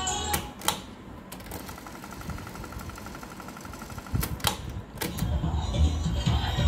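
Cassette deck's piano-key transport buttons clunking down: tape playback stops with a few sharp clicks, the tape mechanism winds briefly with a faint fast ticking whir, then more clunks and the music from the tape starts again near the end.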